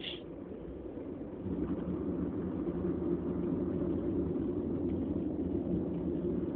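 Steady low rumble, stepping up in level about a second and a half in, with a brief sharp sound at the very start.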